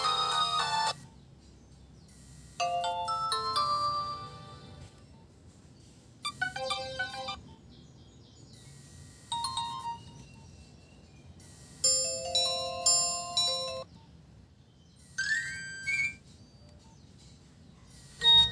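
Nokia 1110i mobile phone playing its built-in ringtones in short snippets: about five brief, bright electronic melodies of one to two seconds each, different tunes one after another with pauses of a second or two between them.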